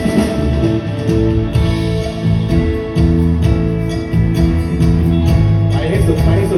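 Live band playing an instrumental passage, guitar to the fore over bass, with a steady beat.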